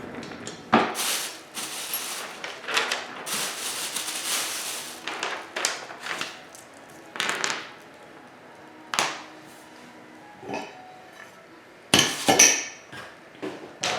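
Clunks, knocks and rattles of office chair parts being moved and handled during assembly, with a louder cluster of knocks near the end.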